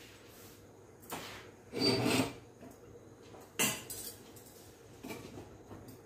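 Metal cookware and steel tongs clattering and scraping on a gas stove while rotis are cooked: a longer scrape and clatter about two seconds in, a sharp clank at about three and a half seconds, and a lighter knock near five seconds.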